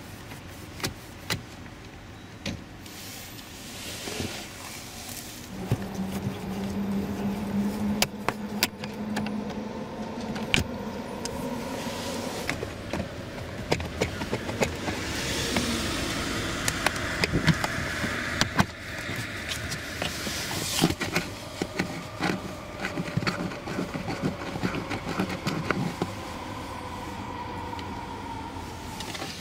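Sharp plastic clicks and snaps of a Toyota RAV4's lower dashboard trim panel being pried loose with a screwdriver and pulled free by hand, many times over the stretch. Beneath them runs a steady mechanical hum with a low tone that stands out for a few seconds near the start.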